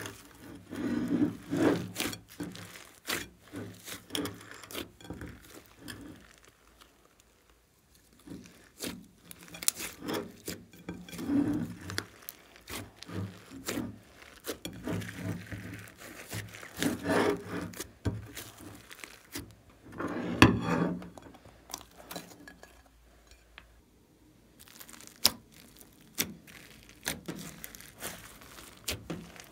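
Hands kneading and squeezing sticky slime: wet squelching with many sharp clicks and pops, in irregular bursts with short pauses, the loudest squelch about twenty seconds in.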